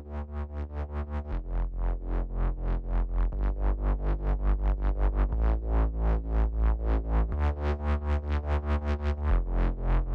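Electronic music: a pulsing synthesizer beat, about four strokes a second, over a bass line that changes note about every two seconds, growing louder over the first couple of seconds.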